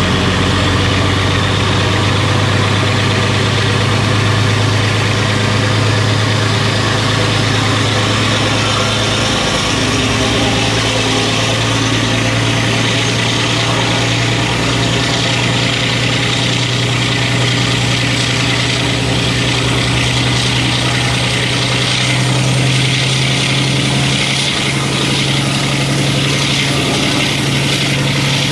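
Class 52 'Western' diesel-hydraulic locomotive's twin Maybach V12 diesel engines running, with a deep steady hum that steps up in pitch about ten seconds in as the revs rise. A high whine climbs slowly in pitch throughout.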